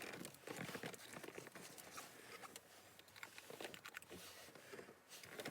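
Faint rustling and crinkling with many small scattered clicks: objects being handled close by.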